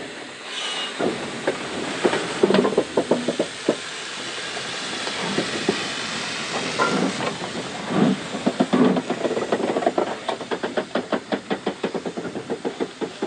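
Steam locomotive working up a climb: repeated exhaust beats over a steady hiss of steam. A quick, even run of clicks comes near the end.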